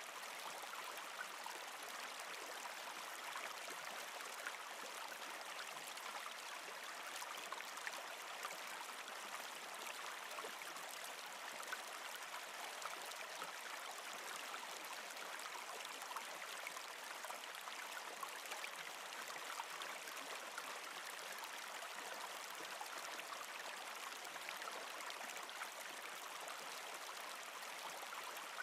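A small forest stream flowing steadily, a constant rush of water with faint scattered trickles.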